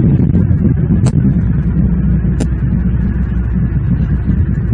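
Steady low outdoor rumble picked up by a nest-camera microphone, with two short high-pitched sounds about one and two and a half seconds in.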